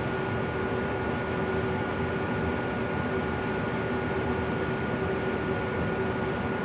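Miller E3 furnace running: a steady rush of air with a constant buzz over it.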